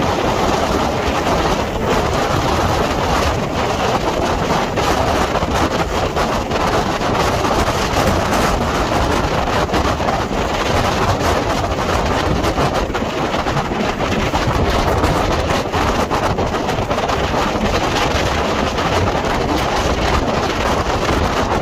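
Strong hurricane wind blowing across the microphone: a loud, steady rush of noise with no break.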